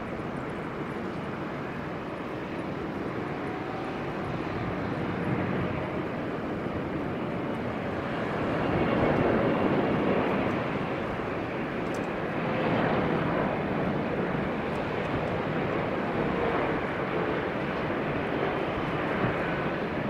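Airliner engine noise: a steady rumble that swells about eight seconds in and again near thirteen seconds as the aircraft passes.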